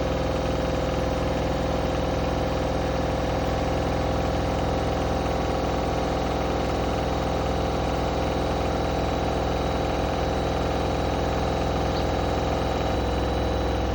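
Bosch WAK28261 washing machine running a steady high-speed spin: a constant whine over a low drum rumble, with a change in the rumble near the end. Its aluminium drum spider is close to snapping.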